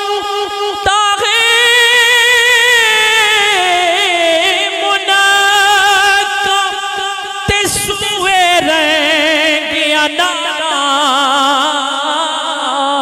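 Man singing Punjabi kalam into a microphone: a long, wordless held phrase with wavering ornaments, the pitch sinking slowly through the phrase.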